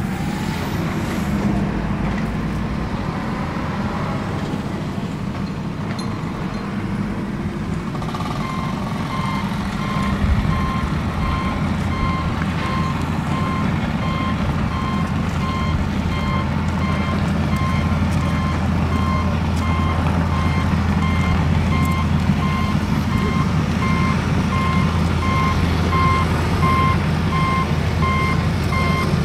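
A truck engine runs with a low rumble. About eight seconds in, a vehicle reversing alarm starts beeping over and over, and a heavier engine hum joins shortly after.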